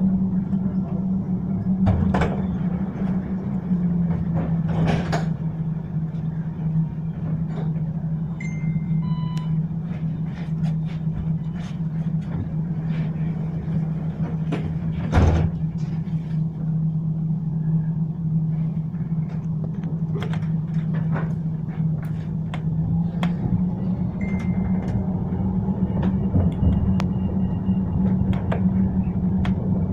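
Ride noise inside a moving tram: a steady low drone with scattered knocks and clatters from the wheels on the track, one loud knock about halfway. Short high electronic beeps sound about eight seconds in and again near the end.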